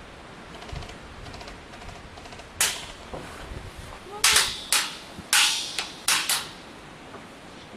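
Airsoft guns firing: about six sharp single shots at uneven intervals through the middle of the stretch, with faint rapid ticking before them.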